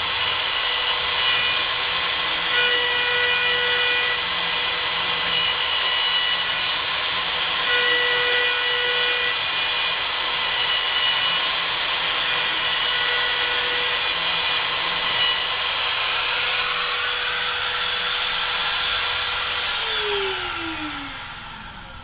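Router spindle of a OneFinity CNC machine running at speed while milling an oval slot in a Lexan sheet: a steady high whine with a few shifting tones over cutting noise. Near the end the router is switched off and its whine falls in pitch as it spins down.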